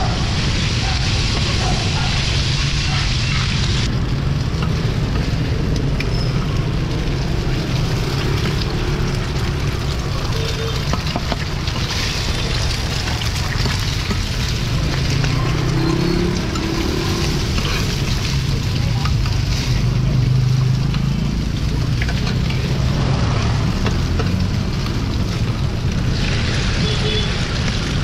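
Bột chiên (diced rice-flour cake) frying on a wide flat griddle, sizzling, with a metal spatula scraping and clicking against the pan, over a steady low rumble of street traffic.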